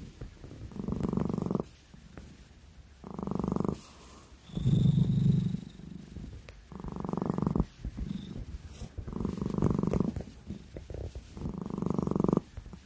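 A cat snoring: a rattling rumble with each breath, six in all, coming about every two seconds with quiet gaps between.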